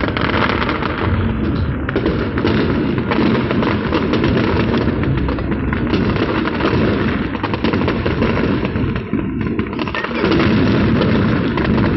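Fireworks display: a dense, continuous barrage of bangs and crackling, with hardly a gap between bursts.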